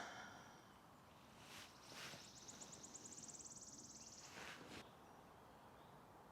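Quiet woodland ambience with a small bird's high, rapid trill of quickly repeated notes lasting about two seconds, and a few soft rustles.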